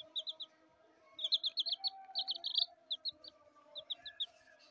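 Baby chicks peeping: short, high chirps in quick runs of three to six, busiest in the middle, over a faint steady hum.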